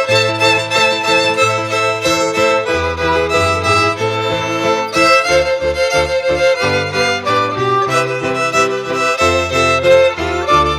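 String ensemble of violins and a cello playing a piece together: sustained bowed melody over a moving low bass line.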